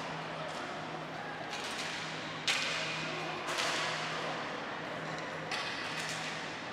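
Ball hockey sticks and ball striking in an echoing arena. There is a sharp crack about two and a half seconds in, and further knocks about a second and three seconds later, over a steady low hum.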